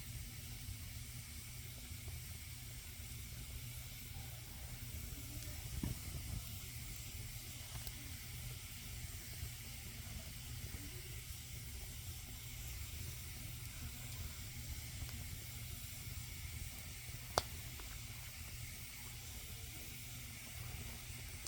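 Campfire burning with a steady soft hiss, one sharp pop about seventeen seconds in and a softer crackle near six seconds.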